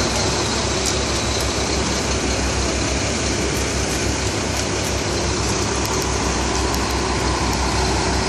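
Heavy truck diesel engine idling steadily, with a low even throb.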